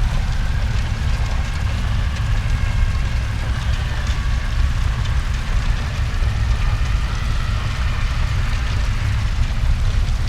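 Hellfire horror sound effect: a steady low roar with faint, wavering screams above it.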